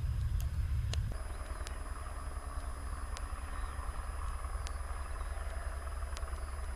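A Douglas DC-3's twin radial engines rumble for about the first second, then cut off suddenly to the steady, slightly quieter turbine-and-rotor sound of a Eurocopter AS350 Écureuil helicopter flying low.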